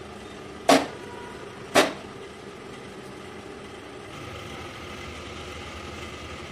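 Two sharp metal clanks about a second apart as the kadai is handled and set down on the gas stove, over a steady low hum that swells slightly about four seconds in.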